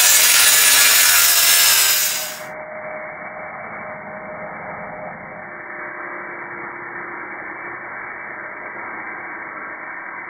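DeWalt circular saw cutting along the edge of a 3/4 inch tongue-and-groove OSB board, trimming off the tongue. Loud for about the first two seconds, then suddenly quieter and muffled, with the high end gone, while the cut goes on.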